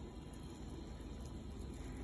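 Tomato rasam boiling in a steel pot on a gas stove: a steady, low bubbling.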